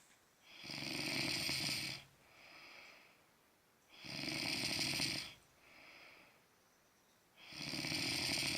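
A sleeping person snoring loudly: three long snores about three and a half seconds apart, each over a second long with a low rattle, and a softer breath between each pair.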